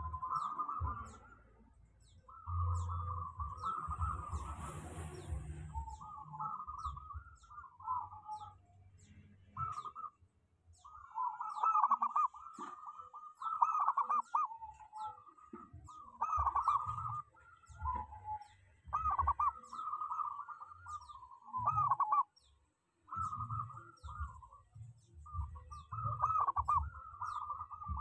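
Zebra dove (perkutut) cooing: repeated phrases of quick, bubbling notes at about the same pitch, each a second or two long, broken by short pauses.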